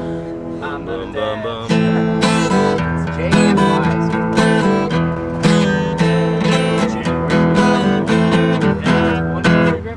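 Acoustic guitar strummed in repeated chords, each stroke sharp with the chord ringing on between strokes.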